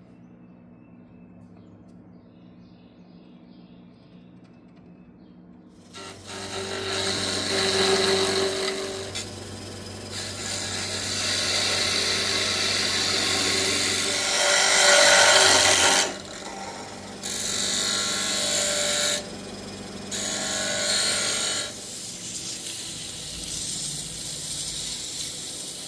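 Wood lathe spinning a leopard wood handle while it is worked with a tool or sandpaper: a loud rasping over a steady motor hum that starts about six seconds in, then stops and starts again several times. Before that it is fairly quiet.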